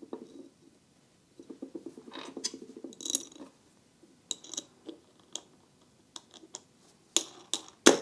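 Small metal clicks and a fine rapid scraping-ticking as a bolt, washer and nut are handled and run onto the bolt through a wooden star knob, clamping its glued base. The ticking comes in the first half; separate sharp clicks follow, the loudest near the end.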